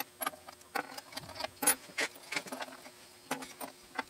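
Small metal lathe tools and lathe dogs clinking and clicking as they are lifted out of a wooden accessory box by hand: about a dozen light, scattered clicks, the loudest a little under two seconds in.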